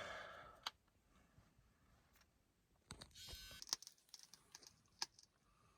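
Near silence broken by faint, scattered small clicks and a brief soft hiss about three seconds in, from small objects being handled at close range.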